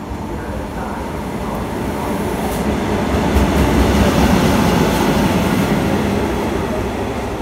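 Italian FS E652 electric locomotive running on its own past close by, its wheels and running gear rumbling on the rails. The sound builds, is loudest about four seconds in as it passes, then fades as it moves away.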